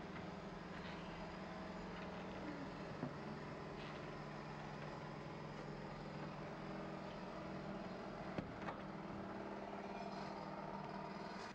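Steady low mechanical hum, with a few sharp knocks about three seconds in and twice near eight and a half seconds.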